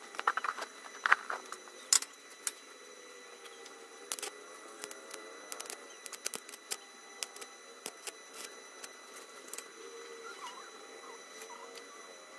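Stick (MMA) arc welding with a small inverter welder on a square steel tube: the electrode crackles and pops in irregular sharp bursts, busiest in the first two seconds and scattered after.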